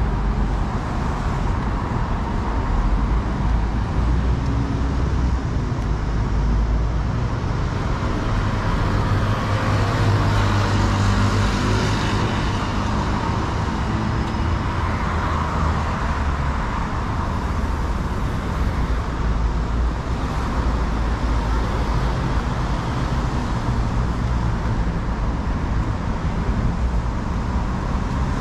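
Steady city street traffic noise with low engine rumble from cars and buses, swelling a couple of times in the middle as louder vehicles pass.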